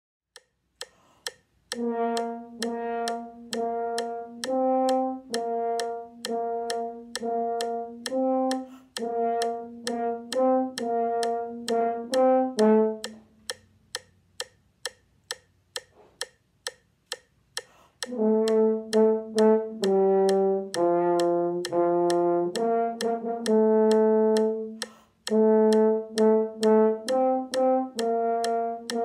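French horn playing a rhythmic line of short, repeated notes against a metronome ticking about twice a second. A few seconds before the middle the horn stops and only the ticks go on for about five seconds, then the horn comes back in with notes that move up and down in pitch.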